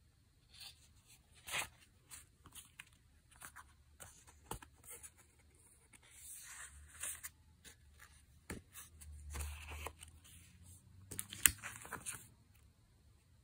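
A stack of thick scrapbook papers rustling and crackling as they are handled and flipped through, in a series of short rustles. The loudest crackles come about a second and a half in and again near the end.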